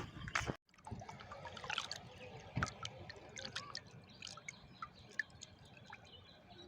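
Faint water trickling and dripping, with many small scattered drips and ticks.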